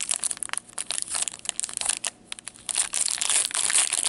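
Foil wrapper of a hockey-card pack crinkling and tearing as gloved hands open it: a steady run of crackles that grows denser over the last second or so.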